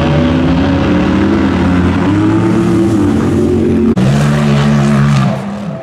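Rock bouncer buggy's engine revving hard under load, its pitch rising and falling. It breaks off abruptly about four seconds in, then runs on at a steadier pitch and fades near the end.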